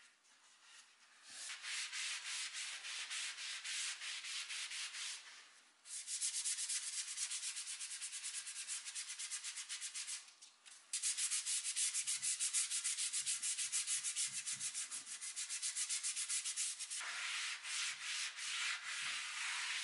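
Bristle paintbrush scrubbing wood stain onto a bare wooden chair arm in rapid back-and-forth strokes, giving a dry, scratchy hiss. It stops briefly twice. Near the end a gloved hand rubs over the stained wood.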